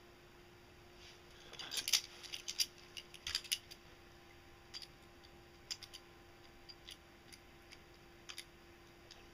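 Sharp metallic clicks and snaps of steel locking pliers gripping and working a wire end: a quick run of clicks about two seconds in, then a handful of single clicks spaced out.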